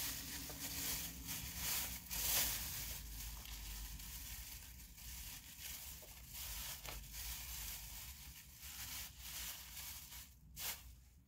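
Thin plastic produce bag crinkling and rustling in short irregular crackles as it is handled and opened to get cilantro out.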